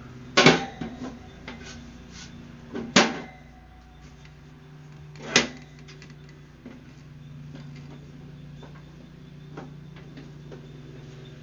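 Sharp knocks and clicks of a portable Char-Broil gas grill being handled and moved: three loud knocks a couple of seconds apart, then only faint clicks, over a steady low hum.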